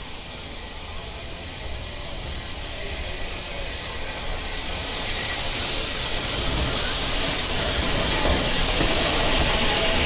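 Steam locomotive letting off steam: a steady hiss that grows louder and jumps up about five seconds in, then holds steady.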